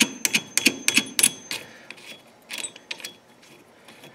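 Sharp metal clicks and clinks as a castle nut is spun on by hand over a lock washer onto the threaded stub of a new CV axle at the front hub. There is a quick run of about six clicks in the first second and a half, then a few scattered ones around the middle.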